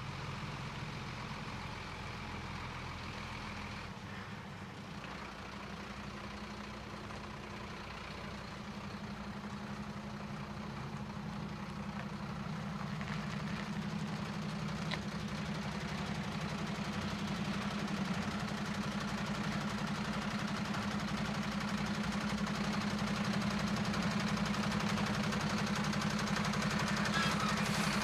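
Truck diesel engine running steadily at low revs while the truck reverses slowly, growing gradually louder.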